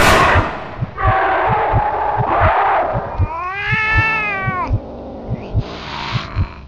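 A cat caterwauling and hissing: a harsh hiss at the start, a rough growling stretch, one long yowl that rises and then falls, and a short hiss near the end. Low, regular thumps about three a second run underneath, like a racing heartbeat.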